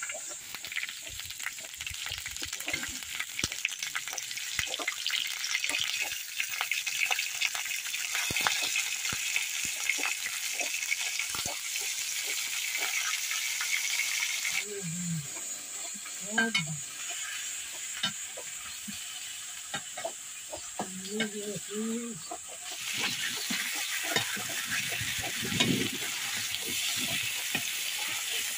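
Pieces of fish frying in hot oil in a metal kadai, sizzling steadily, with a metal ladle scraping and clinking against the pan as they are turned.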